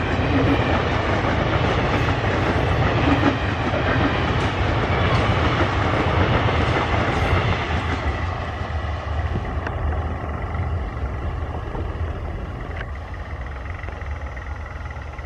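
Express train's ICF passenger coaches running past at speed, their wheels rumbling over the track. The noise fades steadily from about halfway as the train draws away.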